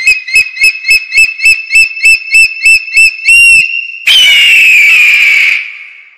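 A bird of prey calling: a rapid series of high, whistled piping notes, about four a second, then from about four seconds in one long, harsh, descending scream that fades away.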